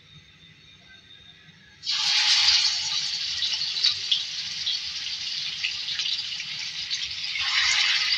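Marinated rohu fish pieces going into hot oil in a pan. A sudden loud sizzle with crackling starts about two seconds in and keeps going, swelling again near the end as a second piece goes in.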